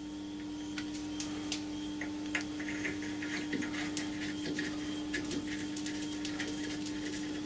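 Small metallic clicks and light scraping as a threaded steel rod is screwed by hand into a part held in a lathe chuck, over a steady low hum.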